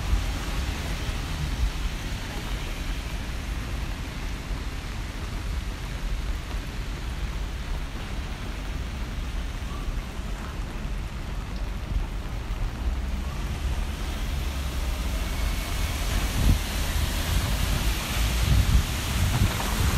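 Steady rain hiss with a low rumble underneath, the hiss growing louder over the last few seconds.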